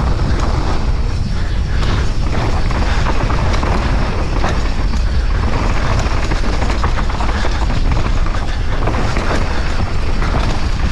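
Downhill mountain bike descending a rough, dry dirt trail: a steady rush of wind on the microphone over tyres on dirt and rock, with the bike's chain and frame rattling constantly over the bumps.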